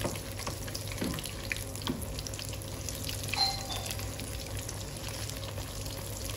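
Battered fish pakoras deep-frying in hot oil in a wok: a steady sizzle with scattered crackles as a wooden spatula turns them. A brief high tone sounds about halfway through.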